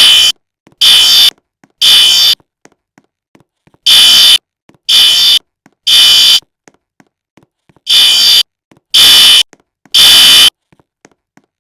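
Fire alarm sounding the temporal-three evacuation signal: three high-pitched beeps of about half a second each, a pause of about a second and a half, then the three beeps again. The pattern repeats three times.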